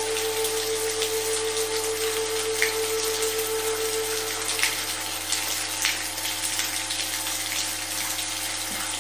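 Steady soft rain with sustained pure tones of a sound-therapy frequency drone laid over it; the highest of the tones drops out about halfway through.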